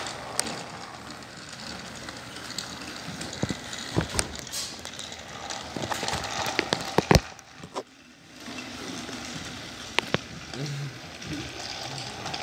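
Battery-powered toy train running along plastic track, its small motor whirring and wheels clattering, with several sharp plastic knocks and clacks; the loudest knock comes about seven seconds in, followed by a brief drop in sound.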